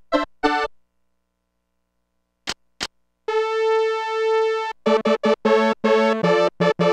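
Casio SA-10 mini keyboard playing synth tones. It plays a few short notes, then after a pause two short clicks, then one held note that swells and dips. From about five seconds in come quick runs of notes and chords.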